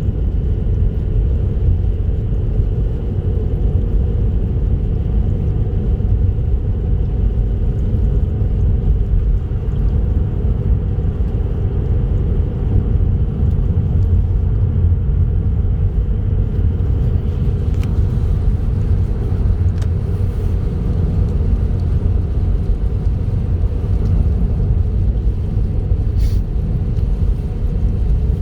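A car driving along a highway: a steady low rumble of engine and tyre noise, with a couple of faint ticks later on.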